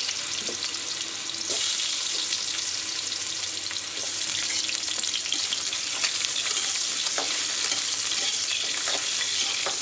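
Potato pieces frying in hot oil in a kadai: a steady sizzling hiss with scattered small crackles.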